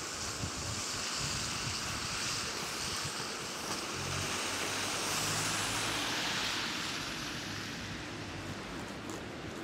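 Bicycle riding on a wet, slushy road: a steady hiss of tyres on the wet surface mixed with wind noise on the camera microphone, swelling slightly midway and easing as the bike slows.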